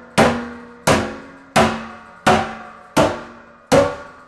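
Sledgehammer striking the head of a steel drum being sunk into the concave bowl of a steel pan, the first stage of making the instrument. Six rhythmic blows about 0.7 s apart, each leaving the steel ringing and dying away.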